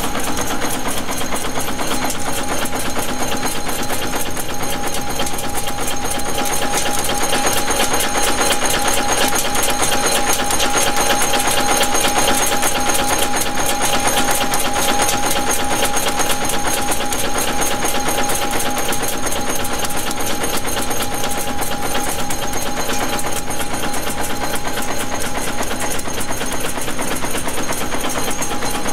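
Manek N-2 wire nail making machine running at speed: a rapid, even mechanical clatter of its repeated strokes, with a steady tone underneath.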